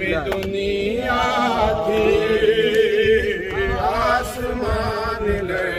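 Men's voices chanting a nauha, a Shia mourning lament, in long held, wavering notes.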